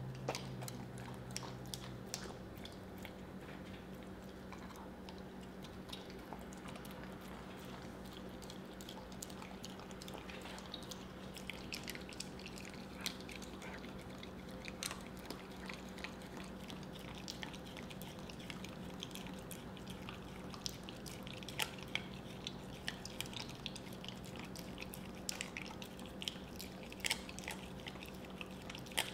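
Siberian husky licking and smacking peanut butter off a plastic spoon: irregular wet clicks and smacks, busier in the second half, over a steady low hum.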